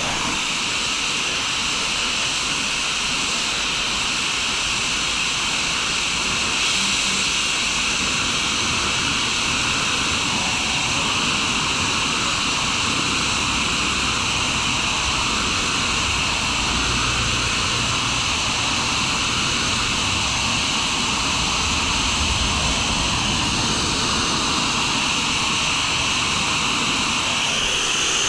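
Torch flame running with a steady hissing roar, heating a pressurised two-stroke expansion chamber so the air inside pushes out a dent.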